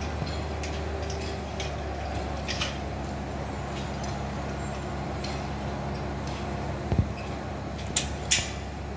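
Mack Rides hypercoaster lift-hill chain running under test: a steady low mechanical hum, with a few sharp knocks near the end.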